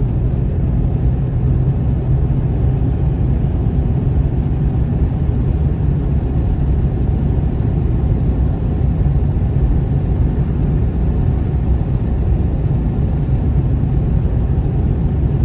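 Steady low rumble of a car driving along a motorway, engine and tyre noise heard from inside the cabin.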